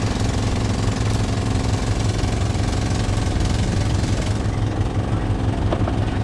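Fishing boat's engine running at a steady speed, a constant low hum with no change in pace.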